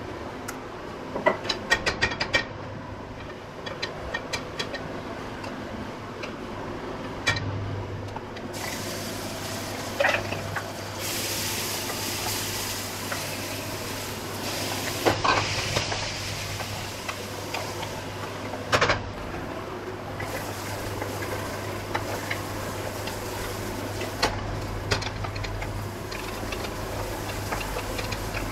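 Hot oil sizzling in an aluminium pressure cooker on a gas stove, the sizzle starting about eight seconds in, as chopped onions are tipped in and stirred. A metal spatula scrapes and knocks against the pot several times, and a run of sharp clicks comes about a second in, over a steady low hum.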